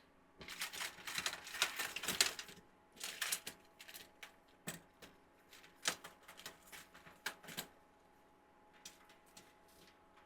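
Plastic LED icicle light strands being handled: rustling with light plastic clicks and taps, busy in the first couple of seconds, then scattered clicks, fewer near the end.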